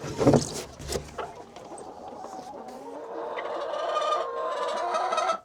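Chickens making weird noises: a few knocks and a short squawk at first, then a hen's long, drawn-out call that grows steadily louder over the last few seconds.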